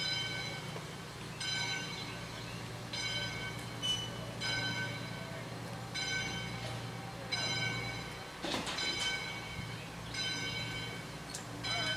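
Locomotive bell ringing steadily, one stroke about every second and a half, over the low, steady running noise of the moving train.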